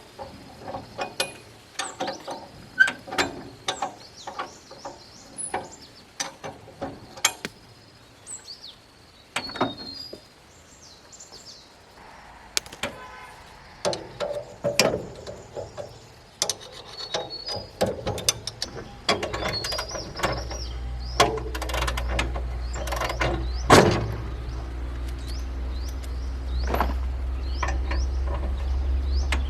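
Metal tools clinking and knocking in irregular strikes during hands-on tractor repair work, with birds chirping now and then. A little past the middle, a steady low hum starts and runs on underneath.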